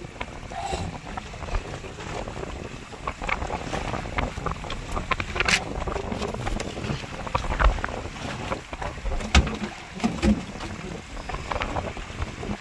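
Sounds aboard a small fishing boat at sea: a steady low rumble with wind on the microphone, and scattered knocks and clicks throughout.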